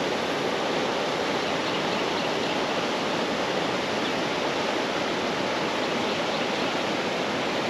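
Steady rushing of a small waterfall cascading down over rocks into the lake, an even wash of water noise with no break.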